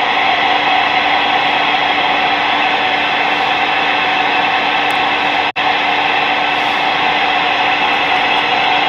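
Stryker SR-94HPC ten-meter radio's speaker giving out loud, steady static on channel 19, with a low steady hum under the hiss. The static drops out for a split second about halfway through.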